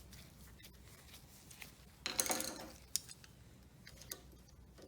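Drywall screw being threaded by hand into a high-pressure seal inside a steel waterjet swivel body: a few small scrapes and clicks of metal on metal, the loudest scrape about two seconds in and a sharp click just after.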